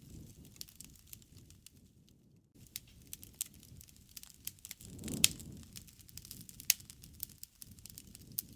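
Wood fire crackling, with scattered sharp pops over a low rustle; the loudest pops come about five seconds in and again a second and a half later.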